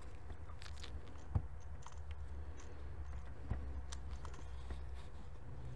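Faint clicks and taps of plastic parts being handled as a new EVAP canister purge valve is slid onto its bracket, the two clearest about a second and a half and three and a half seconds in. A steady low hum runs underneath.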